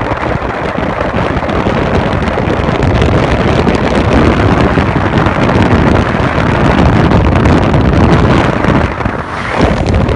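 Loud, steady wind and road noise from a car driving at speed, with wind rumbling on the microphone and a brief lull about nine seconds in.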